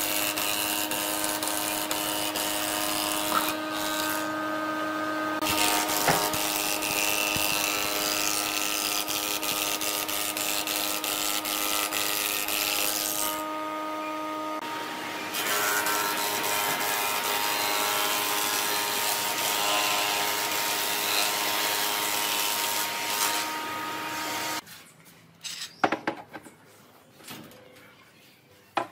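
Electric power tool running steadily with a whine, its pitch changing about halfway through, then switching off near the end, followed by a few light knocks.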